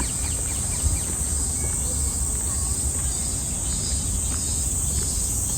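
A steady, high-pitched drone of insects in the park trees, with a low rumble underneath.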